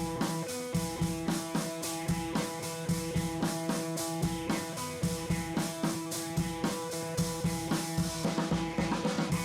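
Background music: a rock-style track with drums and guitar and a steady beat.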